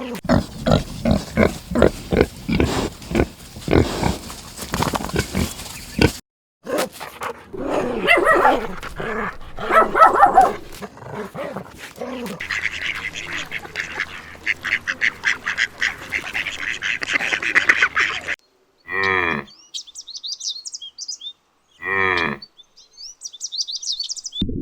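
A string of different animals' calls cut one after another: repeated rapid calls for the first several seconds, a fast rattling call in the middle, then two short pitched cries a few seconds apart with high chirping between them.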